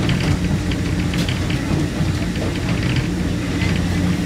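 Passenger train in motion, heard from inside the carriage: a steady low hum with light, irregular rattles.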